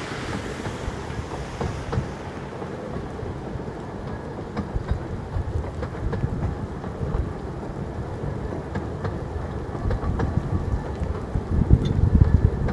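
Steady heavy rain mixed with the low rumble of a 15-inch gauge train's coaches rolling past, with scattered clicks from the wheels on the track; the rumble grows louder near the end.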